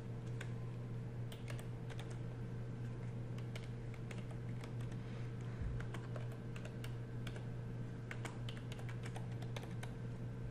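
Computer keyboard typing: irregular keystroke clicks as a line of text is typed, over a steady low hum.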